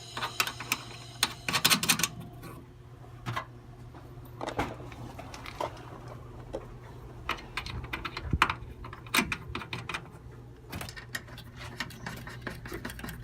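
Irregular clicks, taps and knocks of tools and parts being handled during an air conditioner installation, over a low steady hum.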